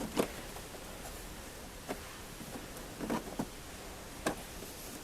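A few sharp plastic clicks and taps, spread out, from plastic push-in fasteners being handled and fitted into a car's plastic wheel-well shield.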